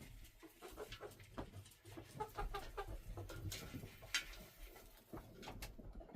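Backyard chickens clucking softly, with a few sharp taps or clicks among the calls.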